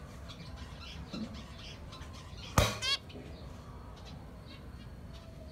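Caged pied zebra finches calling: faint chirps throughout, then a sudden sharp knock about halfway through, followed at once by one short, buzzy call.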